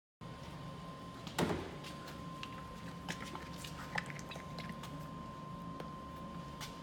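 A plastic bottle of polish being handled and shaken: one thump about a second and a half in, then scattered light clicks and knocks. A thin steady tone runs underneath.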